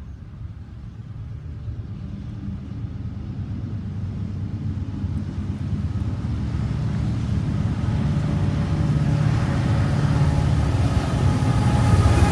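The lead diesel locomotives of a Norfolk Southern coal train are approaching. Their low engine rumble grows steadily louder, and a higher whine joins in over the last few seconds as they draw level.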